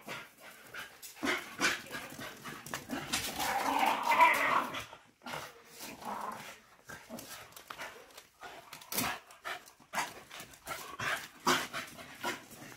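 Patterdale terriers playing and chasing: scattered sharp clicks and scrabbles, with a louder, rougher stretch of dog noise about three to five seconds in.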